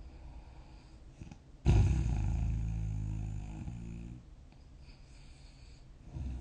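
A person snoring in sleep: one loud, buzzing snore starts suddenly a little under two seconds in and fades away over about two seconds. It is followed by a faint, breathy hiss.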